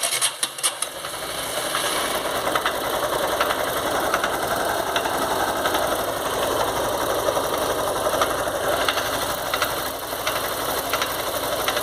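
Stripped-down 150 cc motorcycle engine turning only its crankshaft, running steadily with a rough mechanical noise that comes from a worn crankshaft main bearing on one side. It starts abruptly with a few sharp clicks.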